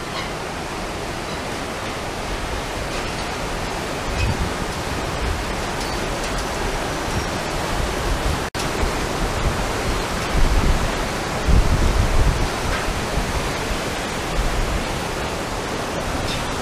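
Steady rush of a river flowing beneath a suspension bridge, with low bumps of wind buffeting the microphone now and then.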